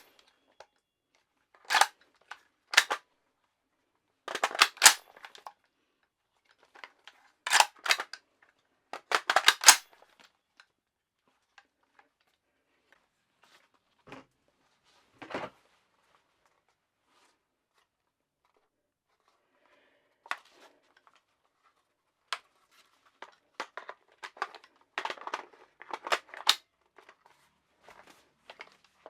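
Sharp metallic clacks and clicks from handling a PSA Soviet Arms AKS-74U-style Krink pistol in .300 Blackout. They come in quick clusters over the first ten seconds, go almost quiet for about ten seconds apart from a couple of faint knocks, then return as a denser run of clicks near the end.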